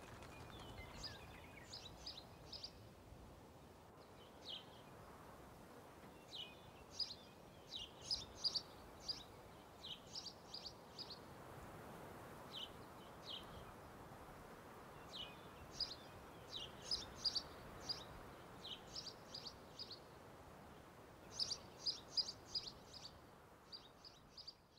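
Small songbirds chirping in quick clusters of short, high notes over a steady hiss of outdoor ambience, fading out at the very end.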